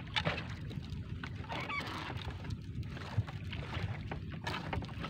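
A small boat's engine runs steadily at idle while a wet fishing net is hauled in by hand, with scattered rustles, drips and light knocks of net and floats against the hull.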